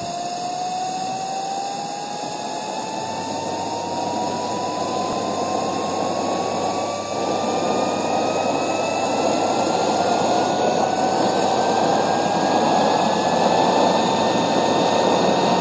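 Homemade miniature turbojet engine spooling up during a manual start: a whine that rises steadily in pitch over a rushing roar that grows slowly louder. Near the end a large flame torches from the exhaust, which the builder puts down to a compressor stall, probably from too low a starter speed.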